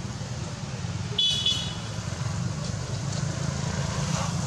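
Steady low rumble of road traffic, with one short high-pitched tone about a second in.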